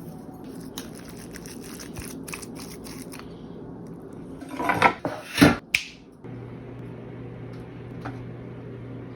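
Kitchen preparation sounds for garlic bread: a run of small clicks and taps, then two louder scraping or rustling noises about five seconds in, followed by a steady low hum.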